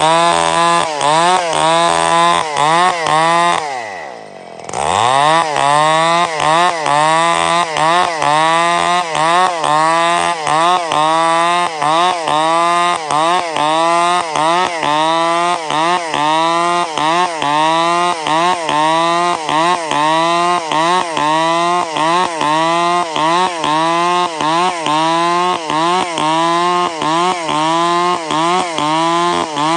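Stihl chainsaw running hard, its engine pitch rising and falling in a steady rhythm about one and a half times a second. Just after four seconds in, the pitch drops sharply and the sound weakens, then it climbs back.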